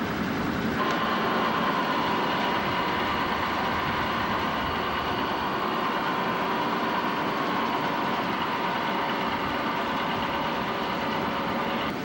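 Steady mechanical drone of a cargo ship's deck machinery, with a steady whine that starts sharply about a second in.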